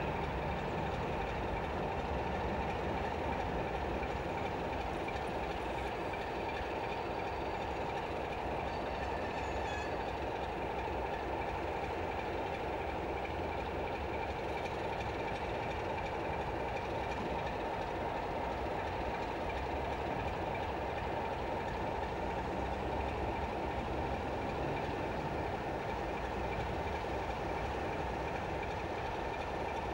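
Class 33 diesel locomotive's Sulzer eight-cylinder engine idling steadily while the locomotive stands still.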